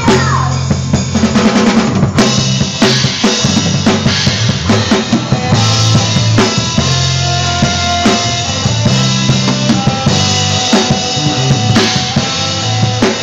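Drum kit playing a groove of bass drum, snare and rimshots along with a backing track of bass guitar and held keyboard notes.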